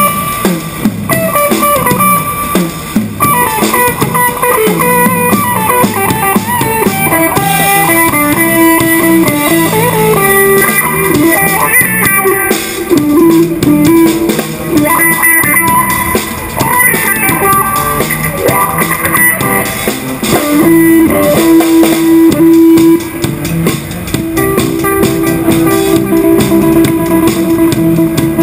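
Live band playing rock: guitar lines over a drum kit, with long held guitar notes in the second half.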